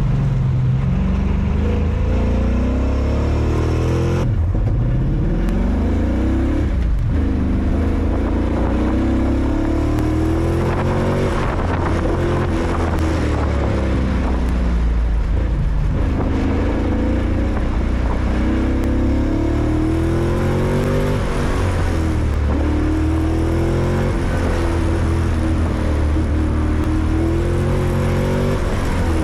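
Car engine under hard acceleration, revving up and down repeatedly as the car is driven hard through a course: the pitch climbs, drops sharply at about 4 and 7 seconds in, then rises and falls again several times.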